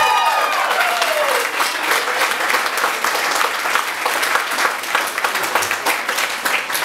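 Audience applauding right after a song ends, with a few cheering voices whooping and trailing off in the first second or so.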